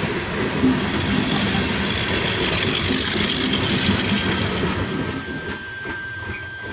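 Heavy vehicle noise: a dense, steady rumble and rush that fades away over the last couple of seconds.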